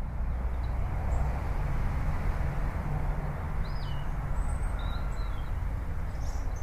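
Steady low outdoor rumble with a hiss over it, and a few short bird chirps that come in about halfway through and again near the end.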